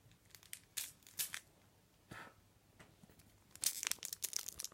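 Wrapper of a Lego trading-card pack crinkling and being torn at by hand, the pack hard to open: a few short crackles, then a denser run of crinkling near the end.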